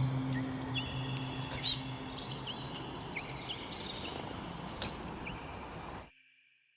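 Several birds chirping and calling, with a quick run of loud, falling chirps about a second in; the sound cuts to silence about six seconds in.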